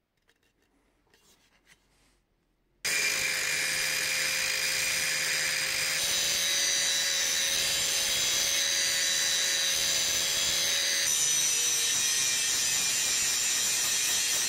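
Angle grinder cutting and grinding into the steel head of an old hatchet clamped in a vise: a loud steady whine with grinding noise that starts abruptly about three seconds in, its pitch shifting slightly twice. Before it, only a few faint handling clicks.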